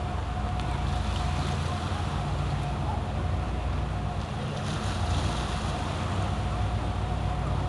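Tourist passenger boat's engines running with a steady low rumble and a thin steady hum as the boat manoeuvres, with a hiss of wind and water over it.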